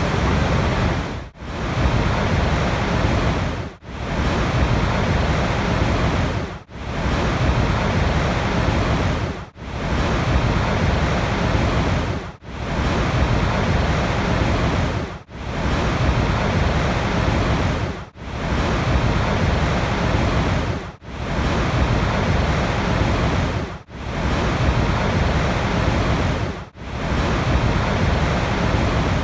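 Steady rushing water noise, strongest in the low end, cutting out briefly about every three seconds in a regular repeating pattern.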